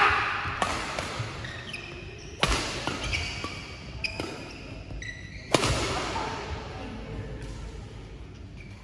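Badminton rally: sharp racket hits on the shuttlecock, the hardest about two and a half and five and a half seconds in, echoing around the hall, with short squeaks of shoes on the court floor between them.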